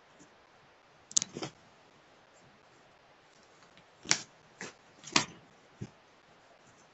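Cats playing on a wooden floor: a handful of short taps and scuffs as they paw and roll, a pair about a second in and a quicker cluster around four to six seconds in.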